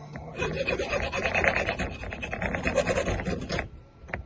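Hand file scraping quickly back and forth on a newly cut key, shaving the blade down so that it no longer sticks in the lock. The strokes stop about three and a half seconds in, followed by a couple of light clicks.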